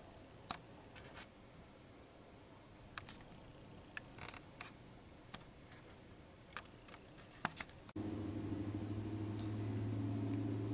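Faint, scattered light clicks and taps of a laptop's keys and trackpad over quiet room tone. About eight seconds in, the sound cuts abruptly to a louder, steady low hum.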